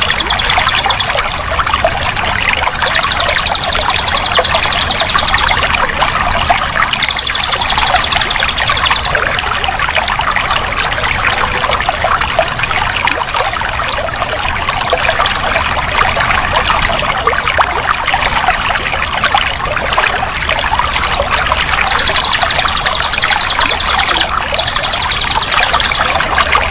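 Flowing water pouring and trickling steadily. A high, fast trill comes in four times, about two seconds each.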